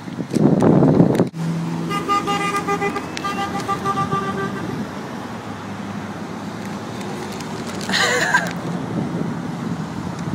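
A passing car's horn honks for about three seconds, with a short break partway through, over steady road traffic. A loud rush of a vehicle going by opens the stretch, and a brief wavering cry is heard about eight seconds in.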